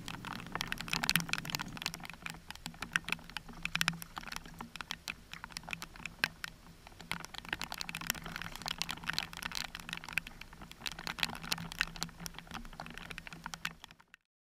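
Raindrops pattering on an action camera's housing: dense, irregular ticks over a low steady hum, cutting off suddenly just before the end.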